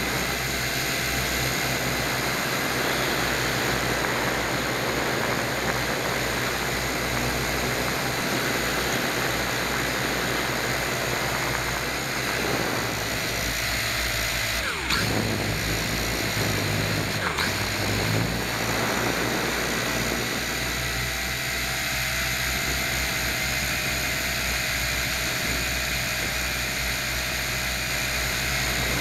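Motor and propeller of a small remote-controlled aircraft droning steadily, heard from a camera mounted on it, with wind rushing past. About halfway through the motor's pitch drops sharply and climbs back a few seconds later.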